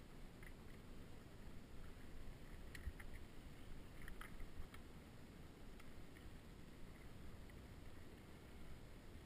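Mountain bike riding over a dry dirt singletrack: a low rumble of tyres and wind, with scattered light clicks and rattles from the bike, a little busier about three to four and a half seconds in.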